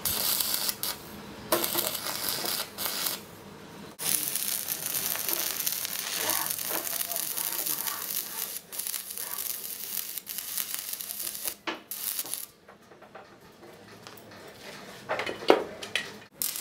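Stick (shielded metal arc) welding on steel: the arc crackles and sizzles steadily, breaks off briefly a few seconds in, then runs again until it stops about three-quarters of the way through.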